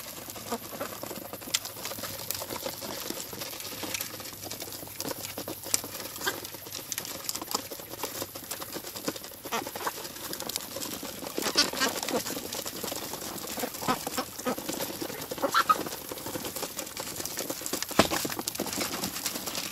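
A flock of ducks feeding, bills pattering and clicking at the food on the ground, with a few short quacks in the second half.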